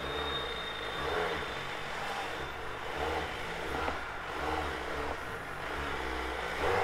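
Suzuki Hayabusa's inline-four engine idling, a steady low rumble that swells and eases slightly.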